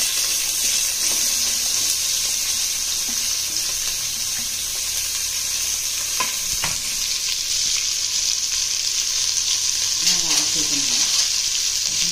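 Onions sizzling steadily as they fry in hot oil with whole spices, with two light knocks about six seconds in.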